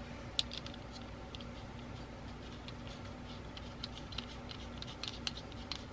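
Faint, scattered small clicks and ticks of small metal camera parts and hand tools being handled during reassembly of a camera mechanism.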